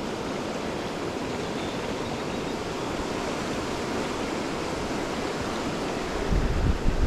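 Upper Sacramento River flowing steadily, a dense even rush of water. Near the end, low gusts of wind buffet the microphone.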